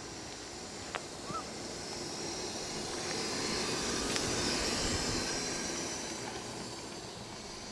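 Permobil F3 power wheelchair driving past on an asphalt path: a steady hiss of its motors and tyres that swells to its loudest about halfway through, then fades as it moves away.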